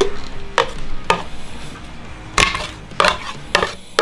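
A metal spoon knocking and scraping against a clear plastic jug and a paper ice cream tub while soft ice cream is scooped, with about seven irregular knocks.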